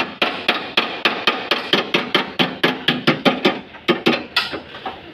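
Hammer blows on a car's bent sheet-metal front panel beside the radiator, struck in quick succession about three to four times a second, each with a short metallic ring. The panel is being beaten straight back into its original shape. The blows grow fainter near the end.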